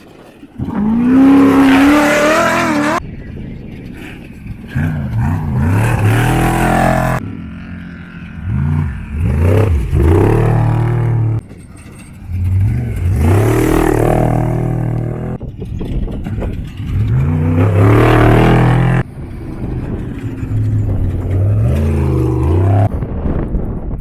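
Off-road desert race vehicles revving and accelerating through a dirt turn, engine pitch rising and falling. Several separate passes follow one another, each starting and cutting off abruptly.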